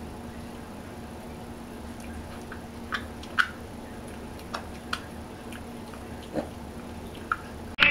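A micro pig rooting at a towel with its snout, making a scattered series of short grunts and snuffles, the first about three seconds in, over a faint steady hum.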